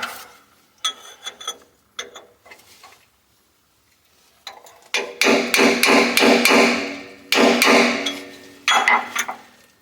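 Hammering on the end of a steel boiler tube in a traction engine's tube plate, collapsing the expanded tube inward to free it. There are a few light taps first, then runs of rapid blows from about halfway, with the metal ringing.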